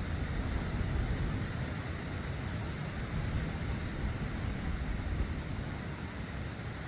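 Steady rushing noise with a heavy low rumble that wavers in level, with no distinct events.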